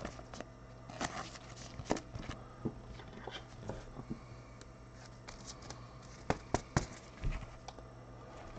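Trading cards and a hard plastic toploader card holder being handled with gloved hands: scattered light clicks, taps and rustles, with a few sharper clicks about six to seven seconds in, over a low steady hum.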